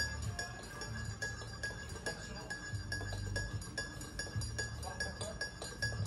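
A racket of light clinking and clattering, many small irregular knocks a second, from household items being moved about while laundry cupboards are tidied, over a low hum that comes and goes.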